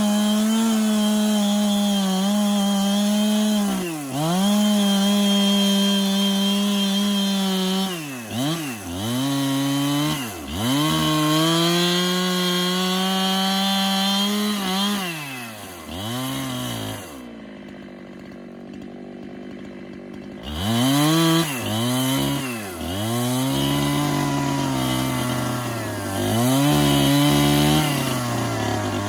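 Two-stroke chainsaw cutting through timber at full throttle, its pitch dipping briefly several times as the chain loads up in the wood. It falls quiet for a few seconds midway, then revs and cuts again at a lower pitch with repeated dips.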